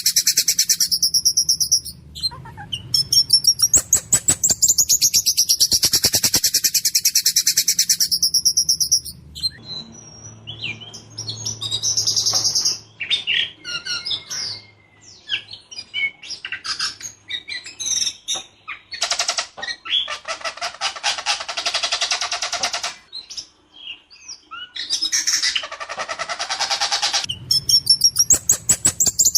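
Ciung batu (whistling thrush) singing loudly in harsh, clear phrases: fast rolling trills and sharp bursts of repeated high notes, with short pauses between phrases.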